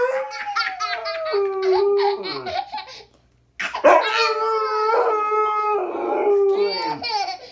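A dog howling in two long drawn-out howls, each falling in pitch at its end, with a short break between them. A small child's laughing voice is mixed in during the first howl.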